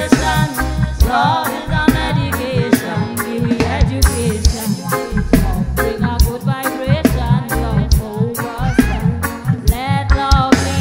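Reggae band playing live, with a steady drum beat and bass under a woman's lead vocal.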